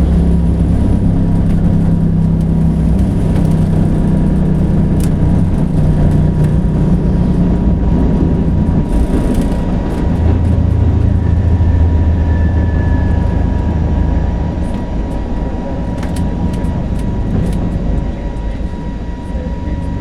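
Airliner cabin noise during takeoff: a loud, steady low rumble from the jet engines and airframe, with a thin steady whine running through it. The sound eases a little near the end.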